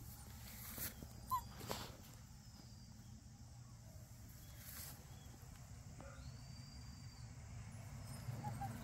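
Puppies moving about on grass, with two brief faint squeaks, one about a second and a half in and one near the end, and a few soft clicks over a low steady rumble.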